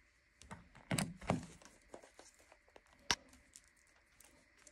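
Small handling sounds at a workbench: a couple of light knocks about a second in, a sharp click about three seconds in, and faint ticks and rustles between.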